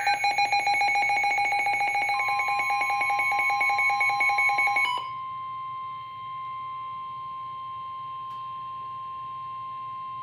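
Emergency alert tones: a rapidly pulsing electronic alarm beep for about five seconds. A steady 1050 Hz weather-radio warning tone comes in about two seconds in and sounds alone once the pulsing stops.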